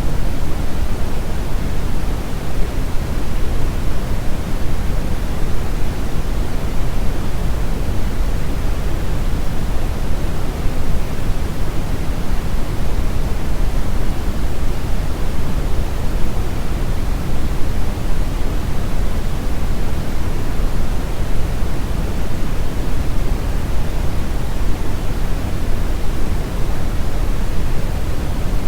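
Steady synthetic noise sound effect: a loud, even rushing hiss, heaviest in the low end, that does not change.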